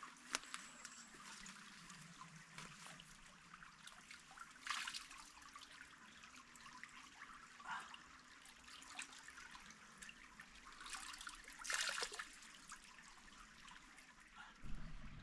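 A stream trickling softly and steadily, with a few brief louder swells of water sound, the strongest about five and twelve seconds in.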